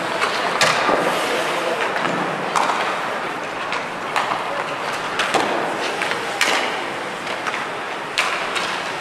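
Ice hockey skates scraping and carving on the ice, with several sharp clacks of sticks striking pucks during passing.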